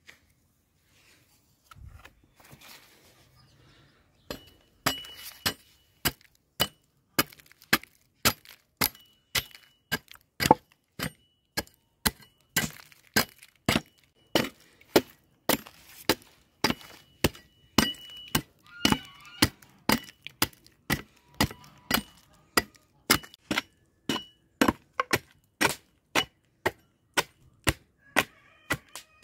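A hatchet chopping an upright apricot branch on a wooden block, cutting it into chips: sharp wooden chops starting about four seconds in, about two a second.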